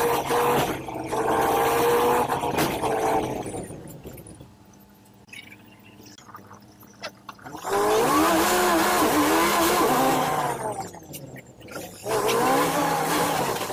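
City bus engine and drivetrain whine heard from inside the bus while driving, a steady pitched hum at first. It drops to a low level for a few seconds midway, then comes back loud with its pitch rising and falling as the bus pulls away and changes speed.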